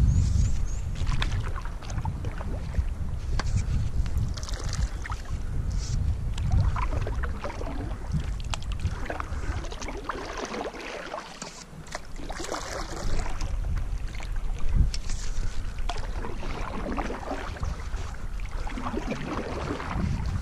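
Canoe paddle strokes dipping and splashing in the river water, recurring every couple of seconds over a low rumble that eases briefly near the middle.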